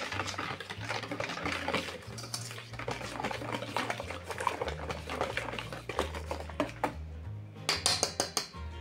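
Wire whisk beating a thin liquid batter in a stainless steel bowl: rapid clicking and scraping of the metal tines against the bowl, with a short run of louder taps near the end.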